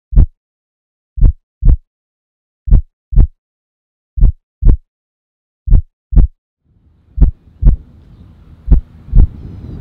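Heartbeat sound effect: deep paired thumps, lub-dub, repeating evenly about every second and a half. Faint outdoor background noise comes in under the last few beats.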